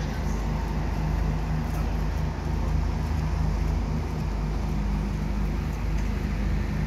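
Steady low engine drone with an even hum, under a constant wash of outdoor noise.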